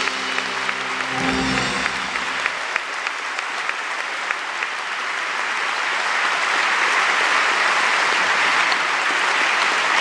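The band's last notes ring out and die away about two and a half seconds in, under a concert hall audience applauding. The clapping goes on steadily and swells a little toward the end.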